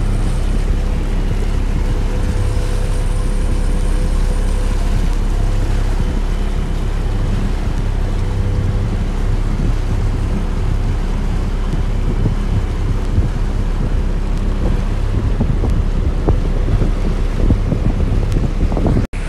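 A 60 hp boat motor running steadily under way, with wind buffeting the microphone and water noise.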